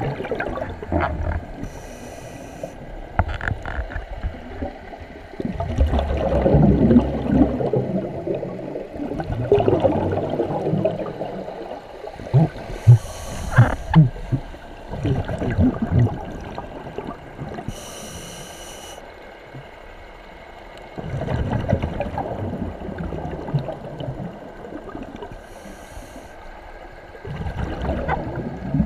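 Scuba diver breathing through a regulator underwater: a short hiss with each inhale and a long bubbling rumble with each exhale, repeating about every eight seconds. A few sharp knocks come in the middle.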